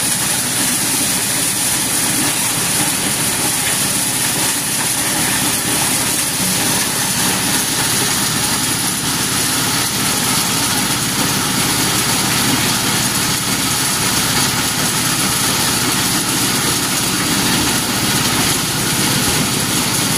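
Engine-driven corn sheller running steadily: a constant, dense mechanical noise with a steady high-pitched hiss on top.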